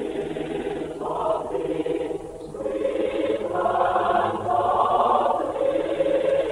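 A choir singing slow, held chords, dipping briefly about two seconds in and then swelling louder.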